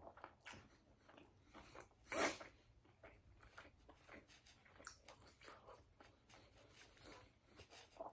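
Faint close-up chewing of a bite of cheesesteak: soft mouth clicks and crunches, with one louder crunch about two seconds in.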